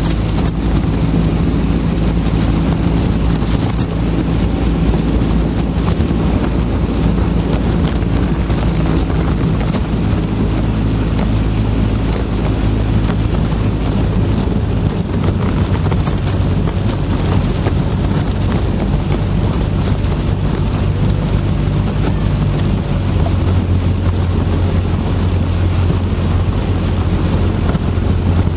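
Engine of a motor launch running steadily while pacing a single sculler, with wind noise on the microphone. Its low tone shifts a couple of times, about ten seconds in and again near the end.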